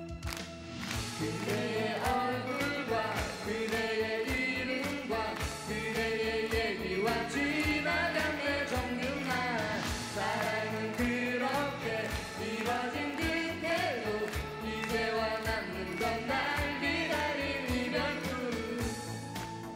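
A man and a woman singing a Korean pop ballad as a duet over backing music with a steady beat.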